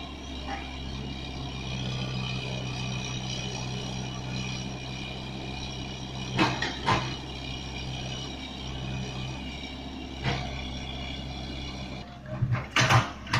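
Excavator's engine running steadily, with a couple of sharp knocks about halfway, another a few seconds later, and more loud sudden sounds near the end.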